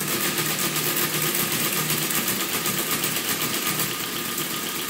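Friden ACG electromechanical calculator running continuously: its motor and gear mechanism make a steady, fast mechanical clatter. The machine is cycling on and on, just counting, rather than completing a single operation.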